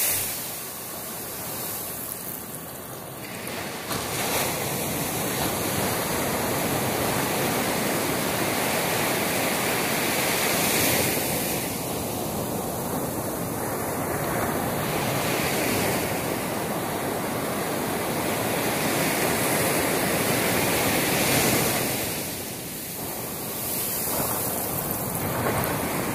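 Ocean surf breaking on a sandy beach and washing up the shore: a continuous rush of waves that swells and eases every several seconds.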